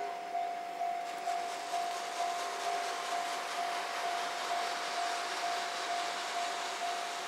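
Railway level-crossing warning bell ringing on one pitch, about two strokes a second, over a rushing noise that swells from about a second in.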